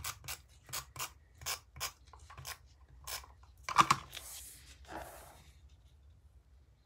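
Repositionable tape runner clicking as it is run along a paper strip, a quick series of sharp clicks over the first two and a half seconds. About four seconds in comes a louder sharp snap and a brief rustle as the paper strip is flipped over and laid down.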